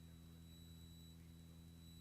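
Near silence: only a faint steady hum with a thin high tone on the audio line.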